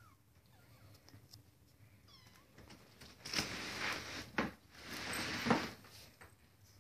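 Kitten meowing loudly twice, each call about a second long, with faint small mews before them.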